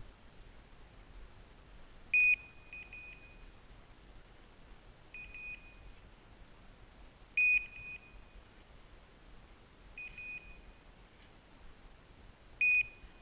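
Electronic beeper collar on a pointing dog sounding in point mode: short high beeps, a group every two to three seconds, five times, each group a sharp beep followed by a few quicker, softer ones, signalling that the dog is standing on point.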